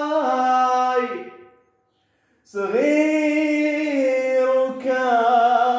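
A man singing unaccompanied in Arabic, holding a long note that fades out about a second and a half in. After a short gap he starts another long held note.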